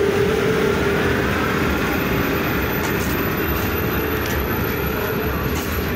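Indian Railways express passenger coaches rolling past at close range, with a steady rumble of wheels on rails. A faint hum fades out about two seconds in, and a few faint clicks follow.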